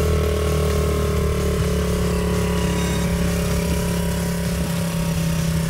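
Honda CRF50F's small single-cylinder four-stroke engine running at a steady low speed, its throttle stop screwed nearly all the way in to hold the revs down.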